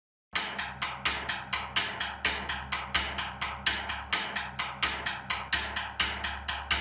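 Background music: a punk rock track's intro, a fast, even drum beat of about four to five hits a second over a steady low bass note, starting just after a moment of silence.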